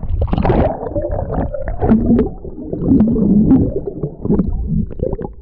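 Muffled underwater sound picked up by an action camera held just below the surface of a lake: low gurgling and rumbling of moving water with scattered small clicks and knocks. The higher sounds drop away within the first second.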